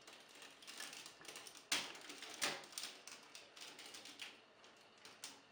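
Plastic parts of a Titan Megazord toy being handled and clipped together as the Garuda wing pack is fitted: a run of light clicks and taps, the sharpest about a second and a half in.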